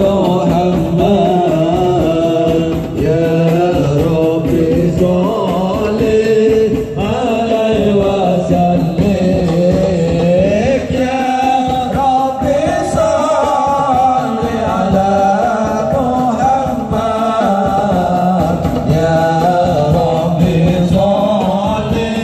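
Live marawis music: men singing an Islamic devotional song (sholawat) to a chanted melody over steady, fast marawis hand-drumming, amplified through a Yamaha DBR15 powered PA speaker.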